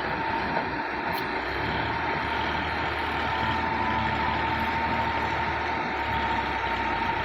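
Diesel earthmoving machinery running steadily with a constant high whine. A deeper engine rumble joins about one and a half seconds in.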